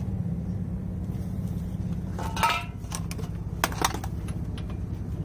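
Steel sockets from a socket set clinking as one is picked out and fitted to the brake caliper bolt: a few sharp metallic clicks, one ringing briefly about two seconds in, over a steady low hum.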